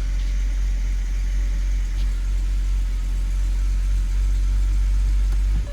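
BMW 325i (E90) inline-six engine idling steadily, a deep even rumble that cuts off abruptly near the end.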